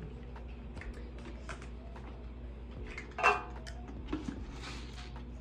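Soft rustling and light ticks of rolled oats being scooped from a cardboard canister with a plastic measuring cup, over a low steady hum, with one short louder sound a little past three seconds in.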